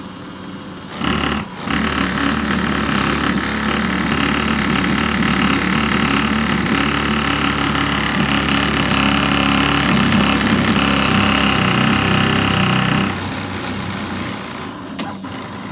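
3D printer with a moving bed, its stepper motors and frame buzzing loudly with a steady multi-toned drone while printing, from about a second in until it drops back near the end. The printer's axis is going into resonance, the condition that can make a printer skip steps.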